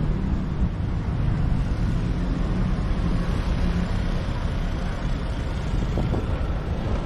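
Steady low rumble of street traffic, with wind buffeting the microphone.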